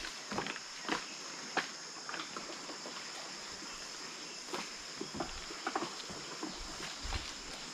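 A steady high insect drone, with scattered light knocks and clicks.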